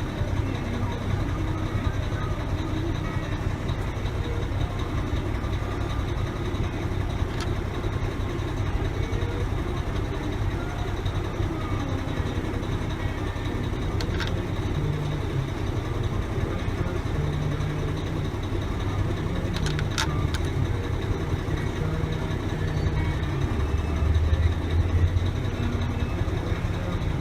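Steady low rumble of an idling engine, with a few sharp clicks.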